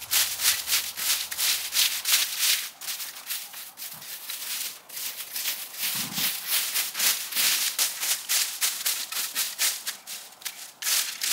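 Garden rake scraping through dry twigs, cones and leaves on the ground in quick repeated strokes, pulling them into a pile.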